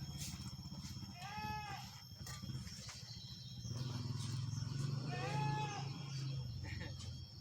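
Sand sifter running with a steady low rumble, broken up by fine regular pulsing. Twice, about four seconds apart, a short high squeal rises and falls in pitch.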